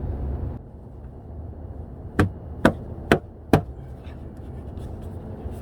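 Four sharp knocks, evenly spaced about half a second apart, as an aftermarket mud flap is fitted to the car's front wheel arch. A low rumble drops away in the first second.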